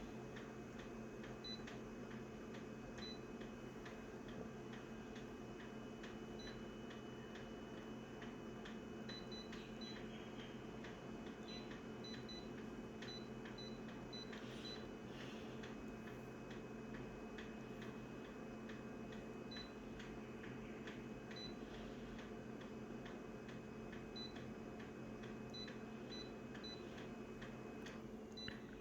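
Small cicadas chirping faintly in short, high, irregular chirps, over a steady low hum and a regular light ticking. A thin high tone stops near the end.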